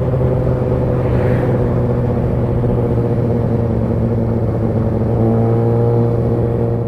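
2019 Kawasaki ZX-6R's inline-four engine running steadily at an even pitch while cruising.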